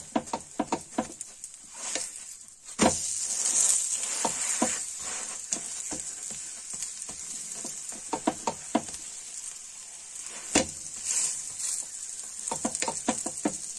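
Stuffed cauliflower paratha sizzling in hot fat on a nonstick tawa as it roasts, with repeated clicks and scrapes of a spatula pressing it down against the pan.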